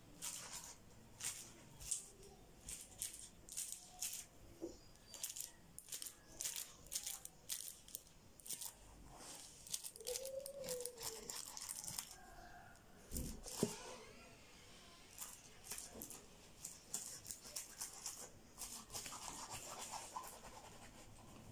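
Plastic bag being handled: faint, irregular rustling and crinkling, with one louder knock about 13 seconds in.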